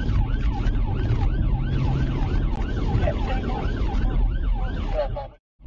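Police car siren on a fast yelp, about three rising-and-falling sweeps a second, over engine and road noise from the pursuing car. It cuts off suddenly about five seconds in.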